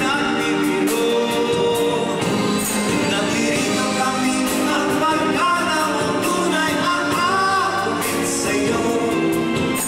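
A man sings into a microphone over a live pop band.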